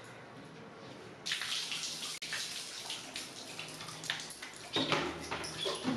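Water poured from a mug over long hair and splashing onto a tiled floor, rinsing the hair; it starts suddenly about a second in and runs on unevenly, loudest near the end.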